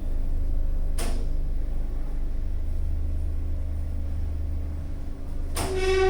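Otis 2000 VF traction lift setting off and travelling upward, with a steady low rumble from the car in motion. There is a click about a second in, and a knock near the end followed by a brief steady tone.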